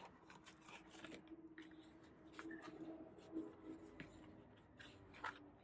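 Faint paper handling: an envelope being folded and shifted by hand on a cutting mat, with soft rustles and small ticks.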